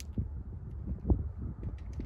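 Wind buffeting the microphone: an uneven low rumble with irregular thumps, the strongest just after a second in, and a few faint clicks.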